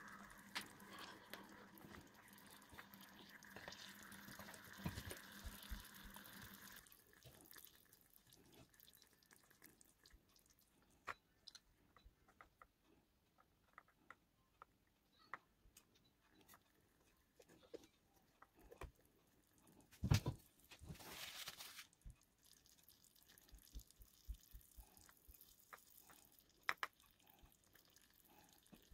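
Faint small-scale cooking sounds from a tiny metal pot: a light hiss for the first several seconds, then scattered soft clicks and ticks of a small wooden spoon stirring against the pot. About twenty seconds in, a sharp knock and a brief splash as water is poured into the pot.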